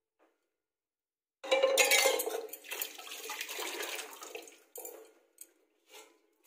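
Water from a tap gushing into a metal pot in a kitchen sink. It starts suddenly about a second and a half in and is loudest at first, then runs more softly, and breaks into a few short splashes near the end.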